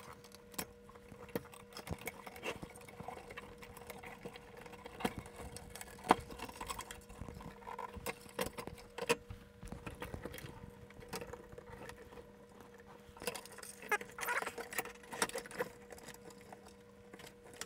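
Scattered small clicks, taps and rattles as wire connectors are pulled off and a circuit board is worked out of a metal electronics chassis by hand, over a faint steady hum.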